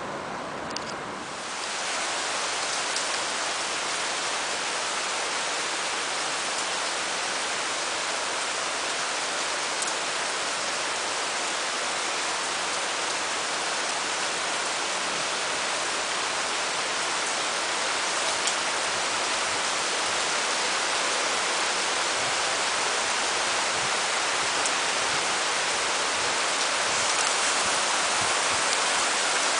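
Heavy rain falling steadily, a dense even hiss that fills out about two seconds in.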